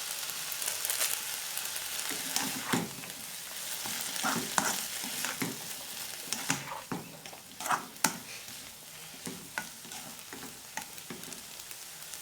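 Chopped onion, bell pepper and tomato sizzling in a little oil in a pan while being stirred, with a steady hiss and irregular knocks and scrapes of the utensil against the pan.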